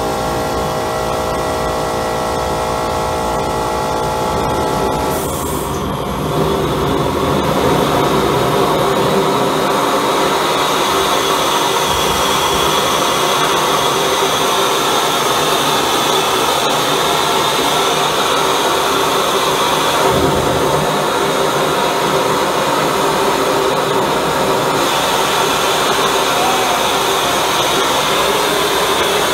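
High-velocity propane burner with compressed-air assist running, a loud steady rush of flame and air. About five seconds in, a steady hum drops out and the rushing grows a little louder and brighter.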